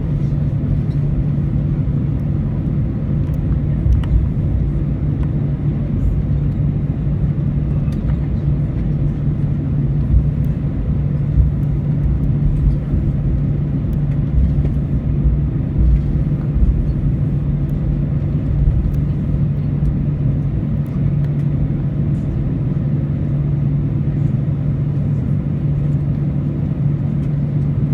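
Steady cabin hum of an Airbus A319 on the ground after landing, a constant drone with a low rumble underneath.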